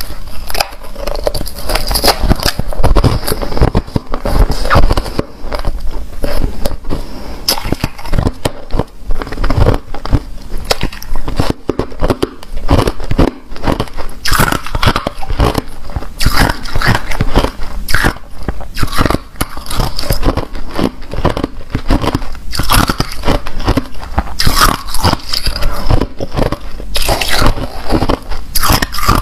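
Close-up crunching and chewing of frosty, snow-textured ice, a rapid run of crisp crunches one after another.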